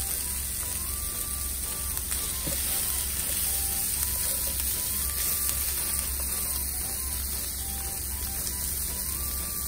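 Chicken, potato and green pepper pieces sizzling in a frying pan: an even hiss over a steady low hum. Faint background music plays.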